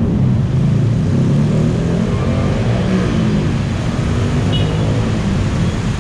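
Motor vehicle engines running close by, a loud steady low rumble of traffic with some slow rises and falls in engine pitch.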